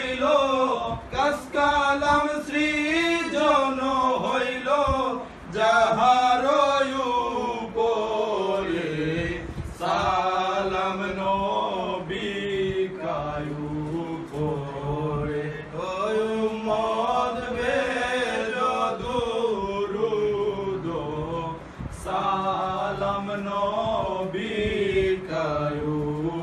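Men's voices chanting a devotional salam (a jari song of praise to the Prophet) to a slow, drawn-out melody, without instruments.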